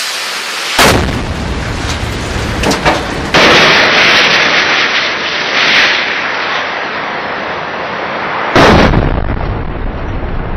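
Rocket firing, its exhaust rushing with sharp cracks, then a heavy explosion about eight and a half seconds in that is the loudest sound, followed by a low rumble.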